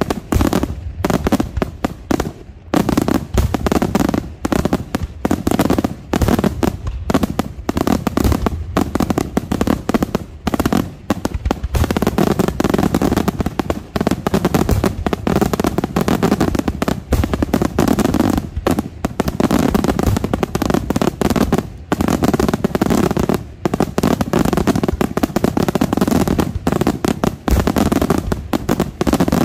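Aerial shells of a daytime fireworks display bursting in a rapid, near-continuous barrage of loud bangs and reports, with a few brief lulls.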